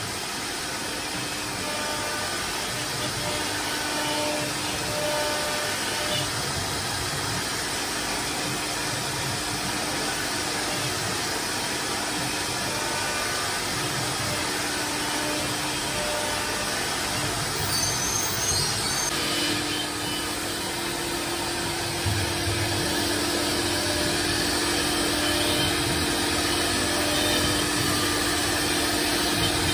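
Chencan M1325AG CNC router running steadily, its spindle bit routing grooves into a wooden panel, with a steady machine hum that grows stronger about two thirds of the way in.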